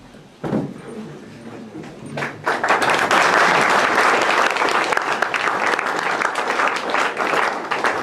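Audience applauding, breaking out about two and a half seconds in and going on steadily.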